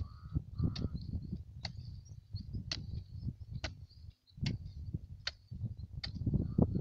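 Hand hoe chopping and scraping in loose, clumpy tilled soil, giving dull irregular thuds. A sharp tick sounds about once a second throughout.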